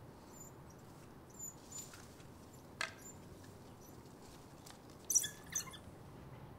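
African painted dogs twittering: a few faint, high, thin chirps early on and a louder cluster of short squeaky calls about five seconds in, with a single sharp snap near three seconds.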